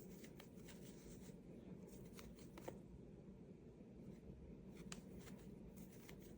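Faint scratching and scattered light ticks of a crochet hook drawing yarn through single crochet stitches, over a low steady room hum.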